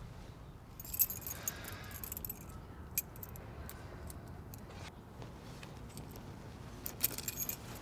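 A bunch of car keys jingling in a hand: a cluster of metallic clinks about a second in, a few single clicks in the middle, and another cluster near the end.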